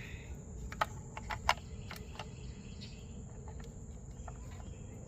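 A few light clicks and faint handling ticks from plastic wiring clips and wires being fitted by hand, over a steady high chirring of crickets.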